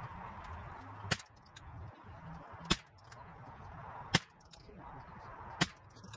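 Ruger 10/22 semi-automatic .22LR rifle firing four single shots, about a second and a half apart.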